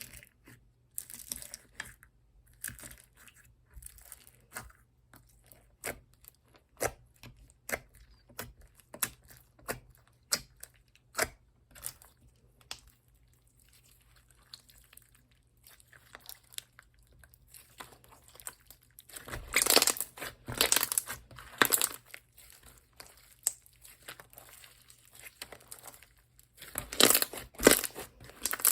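Slime being pressed, squeezed and stretched by hand, giving sticky clicking and crackling pops. The pops come in denser, louder flurries about two-thirds of the way through and again near the end.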